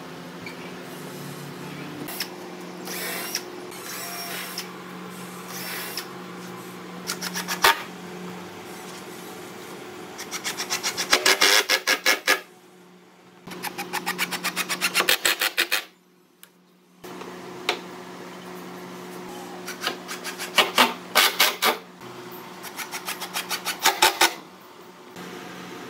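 Cordless drill driving screws through pine planking onto a boat frame, in several short bursts, each a fast run of clicks that grows louder as the screw goes in, over a steady low hum.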